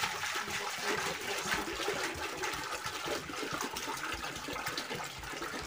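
Clean water poured from a metal pot into a stainless steel cooking pot, splashing steadily as the pot is rinsed after scrubbing with steel wool.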